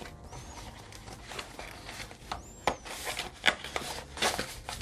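Hands handling a leather planner and a paper notebook: rustling of the notebook's cover and pages against the leather, with scattered soft taps and scrapes. Two faint short high chirps come through, one near the start and one about two and a half seconds in.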